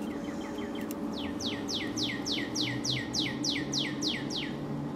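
A songbird singing: a brief run of quick notes, then about a dozen clear whistled notes that each slide down in pitch, about four a second, over a steady low hum.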